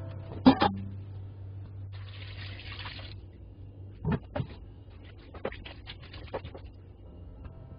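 Salted radish cubes knocked into a plastic kimchi container, then beet water poured in over them, a short splashing pour about two seconds in. Then a wooden spoon clicks and knocks against the radish cubes and the container as the mul-kkakdugi is stirred.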